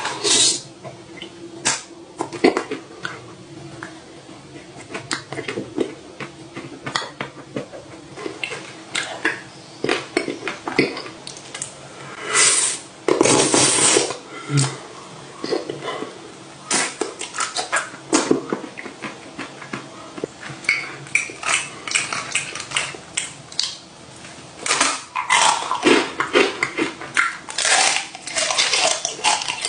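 Close-miked eating: bites of a chocolate-coated ice cream bar dripping with melted chocolate, with many short crunches and wet mouth sounds. Near the end comes denser crunching of a waffle cone.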